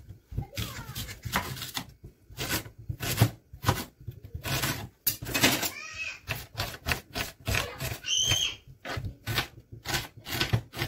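Kitchen knife chopping vegetables on a cutting board: a quick, irregular run of sharp strikes, about two to four a second.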